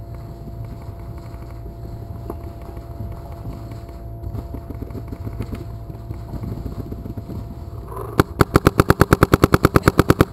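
Paintball marker firing: a single shot about eight seconds in, then a rapid string of about eighteen shots at roughly nine a second.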